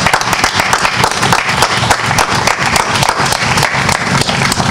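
A crowd applauding, many hands clapping together at a steady pace.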